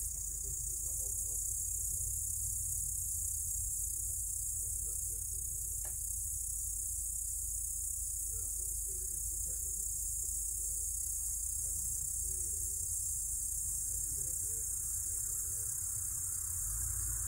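Crickets and other night insects chirring in a steady, high-pitched chorus, over a low steady rumble.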